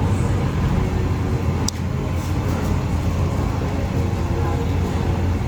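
Steady low mechanical drone, like an engine or ventilation hum, with a single sharp click a little under two seconds in.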